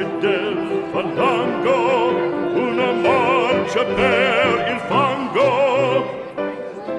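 Operatic singing with classical orchestral accompaniment, the voice sustaining notes with wide vibrato: background music.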